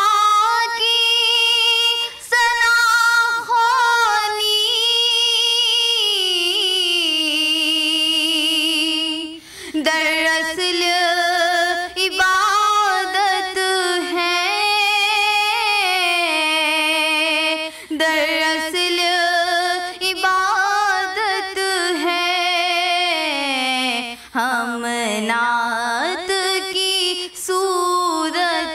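A young woman's solo voice singing an Urdu naat into a microphone, drawing out long held notes that bend and waver between short breaths.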